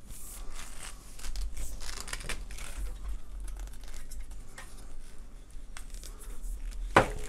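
Tripod light stand being unfolded and extended by hand: scattered clicks, scrapes and rattles of its legs, tubes and joints, with a sharper knock near the end.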